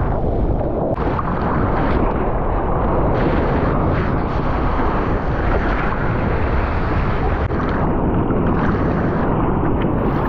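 Wind buffeting the camera microphone together with water rushing and splashing around a moving surfboard, a continuous loud rush with no breaks.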